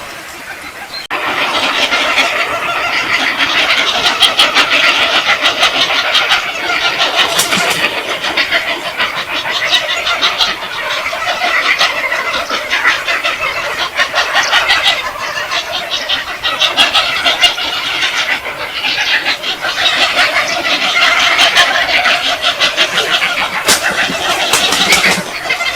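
A flock of birds calling and chattering densely and without a break, starting abruptly about a second in.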